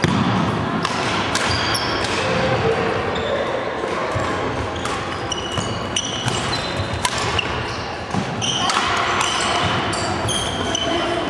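A badminton rally in a sports hall: sharp strikes of rackets on the shuttlecock and footsteps, with sports shoes squeaking briefly on the wooden court, over a background of voices in the hall.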